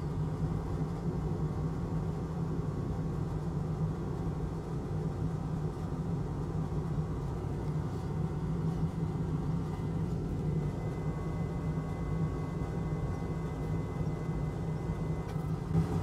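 Steady low drone of electronics-repair bench equipment running, even and unbroken, with a faint thin high tone in its second half.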